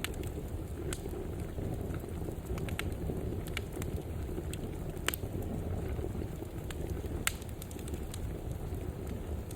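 Wood fire burning in a fireplace: a steady low rumble of flames with scattered sharp crackles and pops, the loudest about five seconds in and again a couple of seconds later.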